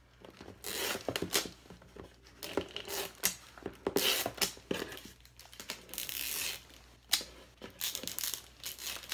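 Cellophane bag crinkling and double-stick tape being pulled and torn from a small hand dispenser, in irregular rustling bursts, with a longer steady rustle about six seconds in.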